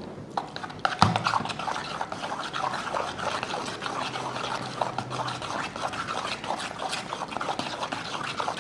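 Wooden chopsticks stirring a wet minced-shrimp mixture in a plastic bowl: a quick, unbroken patter of small clicks that picks up about a second in.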